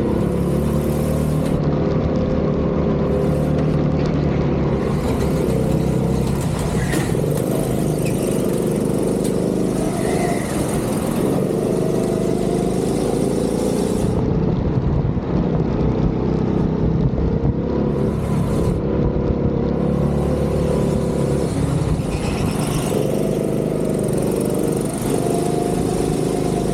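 Go-kart engine running hard through a lap, its pitch rising under acceleration and dropping off several times as the throttle is lifted for corners.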